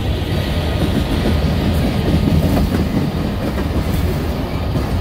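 Long freight train's cars rolling past at about 35 miles an hour, steel wheels clacking over the rail joints under a steady rumble.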